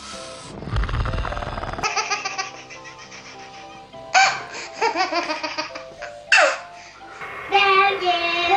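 A breathy hiss over a low rumble for the first two seconds, then music with sustained tones and loud bursts of a child's laughter about four and six seconds in, with more childlike voicing near the end.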